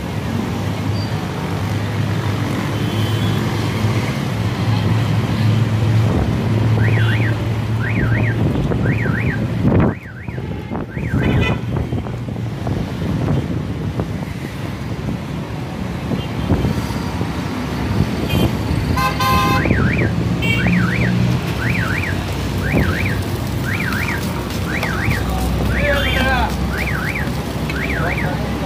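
Street traffic noise with a steady engine hum, and a car alarm wailing in repeated rising and falling sweeps: briefly about a quarter of the way in, then again through the last third.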